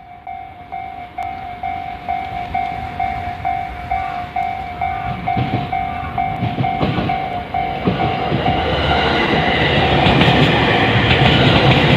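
Japanese level-crossing alarm ringing, an electronic bell tone struck evenly about twice a second. A train approaches and runs over the crossing, its rumble and wheel clatter growing louder from about halfway in until it is the loudest sound near the end.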